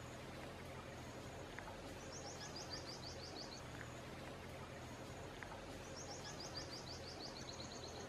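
A songbird singing twice, each time a quick run of about ten high repeated notes, the first about two seconds in and the second about six seconds in. Under it is a steady outdoor background hiss.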